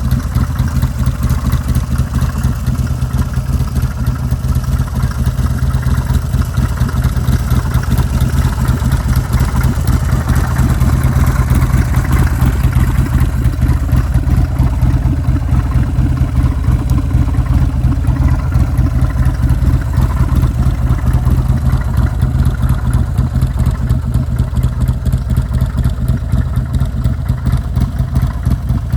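Buell S1 White Lightning's air-cooled V-twin engine running steadily at idle, a little stronger around the middle.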